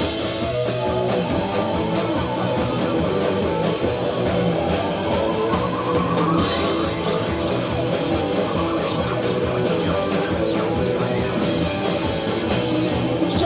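Rock band playing live, an instrumental passage with no vocals: distorted electric guitars, bass and a drum kit keeping a steady beat.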